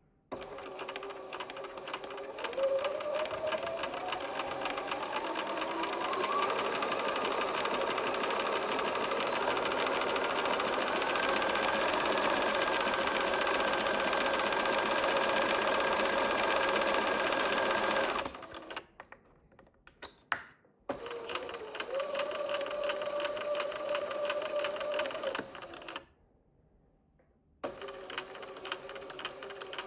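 Bernina sewing machine with a CB (central bobbin) hook stitching, its motor whine rising as it speeds up over the first several seconds, then running fast and steady with the rapid clatter of the hook and bobbin. It stops at about 18 seconds, starts again for a few seconds, pauses, and restarts near the end. The bobbin noise from the CB hook is what the owner is drawing attention to.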